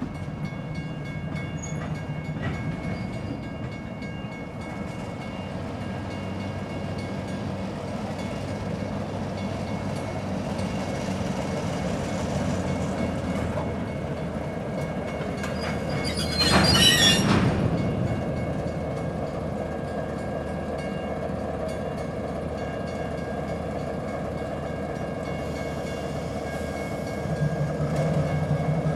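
Baldwin S12 diesel switcher working past slowly with a string of covered hopper cars, its six-cylinder diesel engine running with a steady low drone. About halfway through the wheels give one brief, loud, high squeal. Near the end the engine drone grows louder as the locomotive comes closer.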